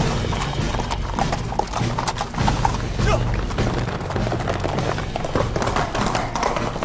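Film score music over the hoofbeats of many horses ridden by a cavalry troop.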